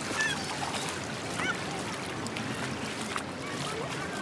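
Beach ambience: a steady wash of noise with a few faint, short high-pitched cries over it.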